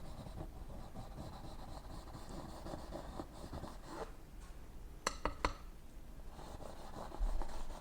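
Faint scraping of a palette knife working oil paint on the palette and canvas, with two or three sharp clicks a little after halfway and a soft thump near the end.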